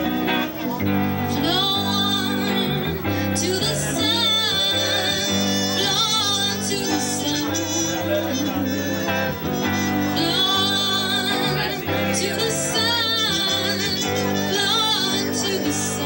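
Small live band playing: electric guitar, bass and trumpet, with a voice singing over them.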